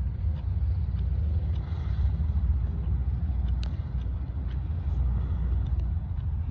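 Boeing B-17G Flying Fortress's four Wright R-1820 Cyclone radial engines running as the bomber rolls down the runway, heard as a steady low rumble.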